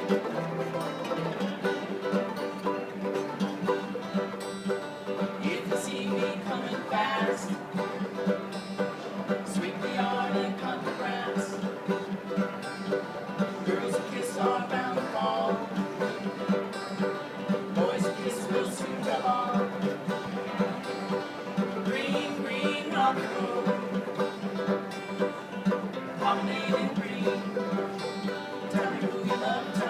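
Old-time acoustic string music played live, with plucked strings keeping a steady rhythm under a wavering melody line.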